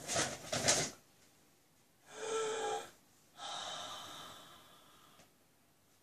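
A woman's wordless excited vocal reactions: a short pitched squeal about two seconds in, then a longer drawn-out exclamation that slowly fades. It opens with a brief burst of rustling from the gift bag.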